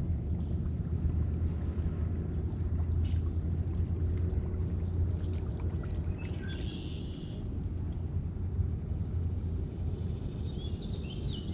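Steady low outdoor rumble, with a bird chirping high and quick, about two chirps a second, over the first few seconds, and a few more short bird calls later.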